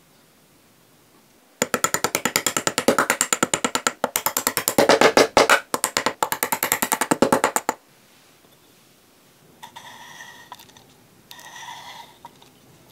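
Rapid train of hard metal clicks, about ten a second, for some six seconds as a cylinder liner is worked down into a mini engine's aluminium block. Three short bursts of ringing metal scraping follow near the end as the parts are handled.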